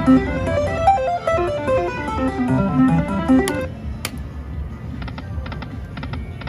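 Video slot machine playing a quick melodic jingle of plucked-sounding notes that cuts off about three and a half seconds in. A couple of sharp clicks follow, then runs of short ticks.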